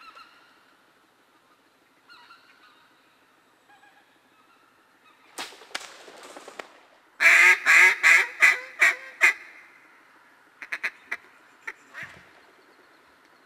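A loud run of about seven mallard-type duck quacks in quick succession, each a little weaker than the last, after a few fainter quacks. A handful of short, sharp quacks follow near the end.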